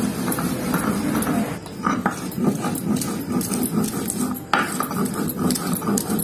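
Cumin and ginger being ground to paste on a stone sil-batta: the stone muller scrapes back and forth over the grooved stone slab in a steady rhythm of about two to three strokes a second. A sharp knock about four and a half seconds in.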